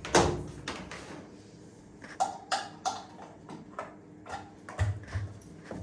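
Clicks and taps from handling an LG top-loading washing machine as it is plugged in and set up: one sharp click at the start, then a quick run of about a dozen short clicks, with a couple of dull thuds near the end.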